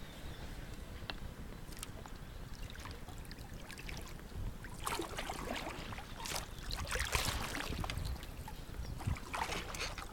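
Rowboat being rowed: oar strokes dipping and splashing in the water, several irregular strokes from about five seconds in, over a low steady rumble.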